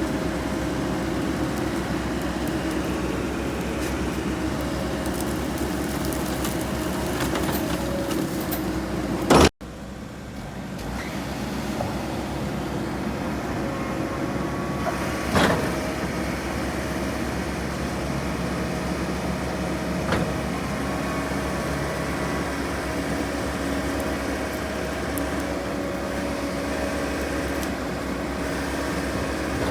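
Heavy machinery engine running steadily, with a couple of short knocks. The sound cuts out abruptly about a third of the way in and then resumes.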